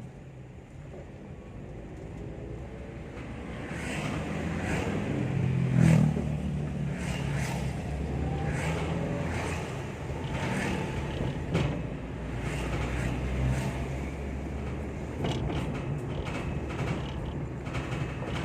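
Vehicle running with a steady low hum while irregular creaks and clicks set in about four seconds in. The creaking is the 'strange sound' of the empty funeral bier (keranda) carried in the ambulance.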